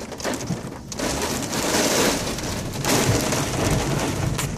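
Heavy rain pelting a car's roof and windows, heard from inside the cabin, like a car wash. The downpour eases slightly near the start and is heavier from about a second in.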